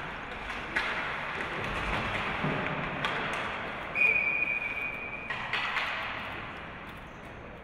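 Hockey game sounds: a steady hiss of skates and rink noise with scattered stick and puck knocks, then a referee's whistle blown about four seconds in and held for just over a second.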